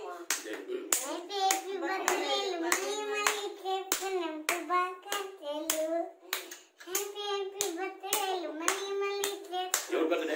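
A young girl singing a song in a high voice, with hand claps keeping a steady beat of about two a second.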